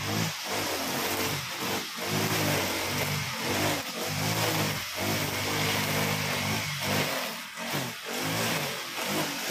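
Honda GX35 single-cylinder four-stroke brush cutter running under load while cutting grass, its engine pitch rising and falling every second or so as the throttle is worked and the cutting head meets the grass.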